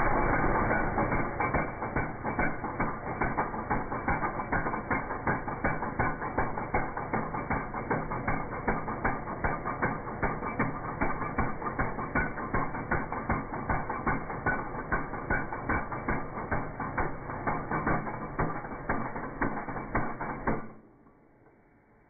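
Impact wrench hammering on a lug nut of a combine's wheel rim, running with a rapid rattle for about twenty seconds and then stopping suddenly shortly before the end.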